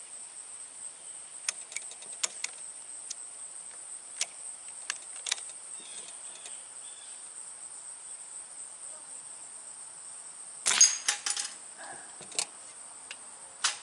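Steady high-pitched insect buzzing with a few faint clicks. About eleven seconds in, a .177 Diana Trail Scout CO2 air rifle shot and the pellet's hit on a metal deer knockdown target come as one loud crack, followed by a short clatter of metallic clicks as the plate falls.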